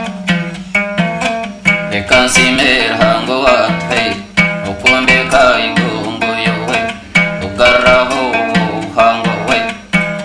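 Ankole folk song: a plucked string instrument plays a quick repeating pattern over a low percussive beat. About two seconds in, voices join in singing.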